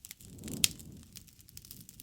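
Campfire crackling: scattered sharp pops and snaps of burning wood, one loud pop just after half a second in, over a soft low rush of flame.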